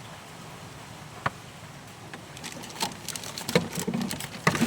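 A single sharp knock about a second in, then a run of clattering knocks and rattles near the end, from the cut-round section of rusty car body panel being worked loose by hand.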